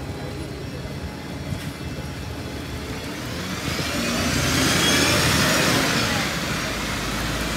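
A bus passing on a wet road: engine and tyre hiss swell to a peak about five seconds in, then ease off.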